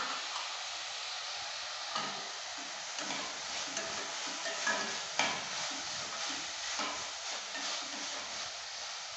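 Chopped onions sizzling in hot oil in a stainless steel kadai while a steel spoon stirs them, with scattered scrapes and clinks of the spoon against the pan, the sharpest about five seconds in.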